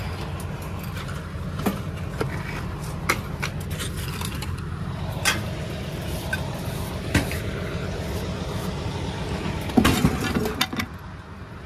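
A car tire on an alloy rim rolled up a metal mesh ramp onto a wooden trailer deck, with scattered knocks and rattles, the loudest cluster near the end. A vehicle engine runs steadily underneath.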